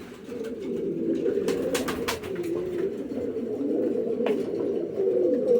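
Several domestic pigeons cooing at once, overlapping wavering coos inside a pigeon loft, with a few sharp clicks about one and a half to two seconds in and again past four seconds.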